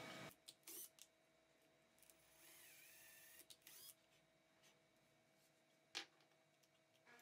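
Near silence: faint room tone with a few soft clicks and small knocks, the sharpest about six seconds in.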